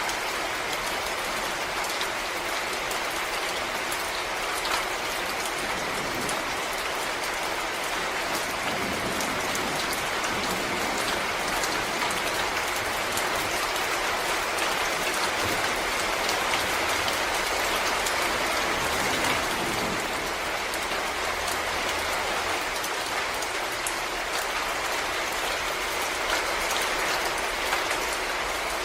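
Steady rain falling in a forest, with many separate drop hits on leaves and ground heard close by.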